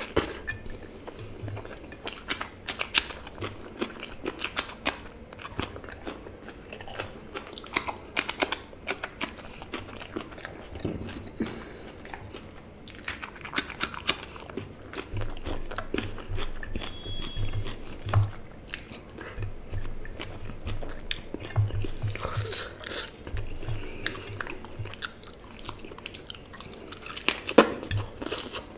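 Close mouth sounds of a person eating curry and rice by hand: irregular wet chewing and biting, with sharp clicks and smacks throughout.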